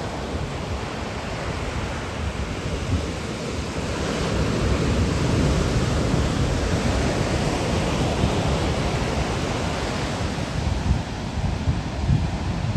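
Ocean surf washing ashore as a steady rush, swelling about four seconds in and easing after the eighth second, with wind buffeting the microphone in a low, gusty rumble.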